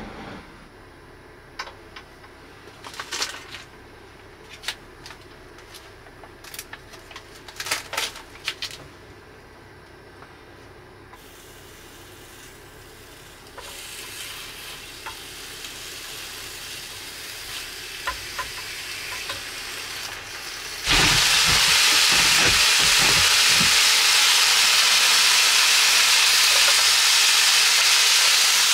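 Thin slices of meat frying on an electric tabletop hot plate: a few clicks and knocks from handling the plate and chopsticks, then a faint sizzle that slowly builds and, about three quarters of the way through, jumps suddenly to loud, steady sizzling.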